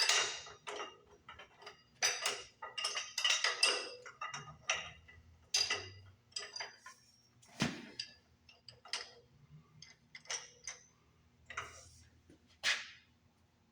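Metal hand tools clinking and clanking against steel engine parts: irregular sharp metallic knocks and chinks, each with a short ring, as a tool is fitted and worked on the engine.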